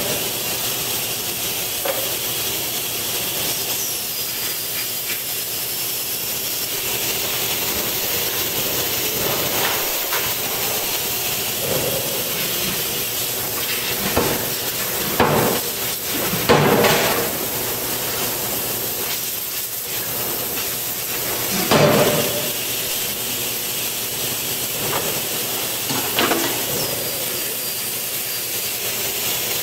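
1.35-ton Otani pneumatic forging hammer striking hot steel in its dies: about eight heavy blows at uneven intervals, the loudest around the middle, over a steady high hiss.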